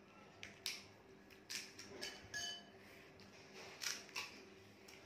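Short, sharp clicks and crunches at irregular moments, about seven in a few seconds: crisp panipuri shells being bitten and filled, and a syringe and spoon clinking against the bowls of pani. A couple of the clinks ring briefly.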